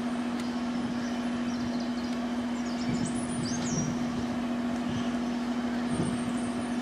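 A steady mechanical hum holding one constant low tone, with a few brief high chirps about three seconds in.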